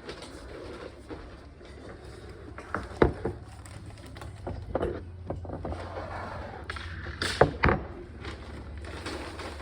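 A few short knocks and clatters, about six in all and the loudest about three seconds and seven and a half seconds in, over a steady low hum.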